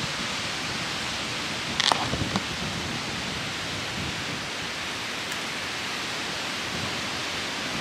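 Steady wind noise buffeting the microphone, with a few brief clicks about two seconds in.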